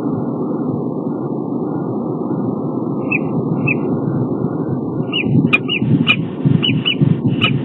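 Peregrine falcon giving short, high chirping calls: two about three seconds in, then a quicker run from about five seconds, mixed with sharp clicks. A steady low rumble runs under them.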